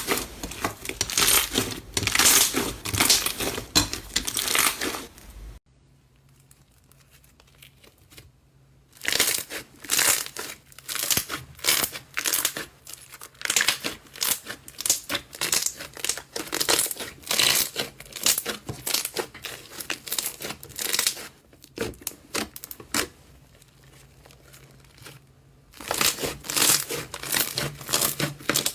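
A hand squeezing and pressing slime, making dense runs of small pops and clicks. It stops twice for a few seconds, about six seconds in and again past the twenty-second mark.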